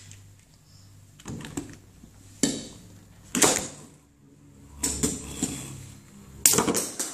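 Beyblade spinning tops clashing in a plastic battle stadium: irregular sharp clacks and knocks, a handful spread over several seconds.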